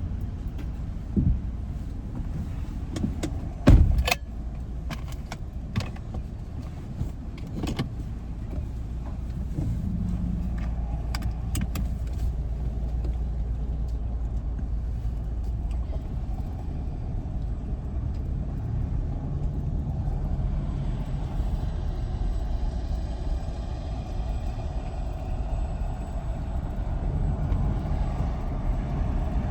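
Car driving, heard from inside: a steady low rumble of road and engine noise. Scattered clicks and knocks come in the first dozen seconds, with one loud thump about four seconds in.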